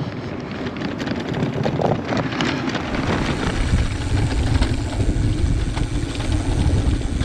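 Wind buffeting the microphone of a camera on a moving bicycle, with the rolling noise of the tyres on rough asphalt. A few light clicks sound before the low rumble grows heavier about three seconds in.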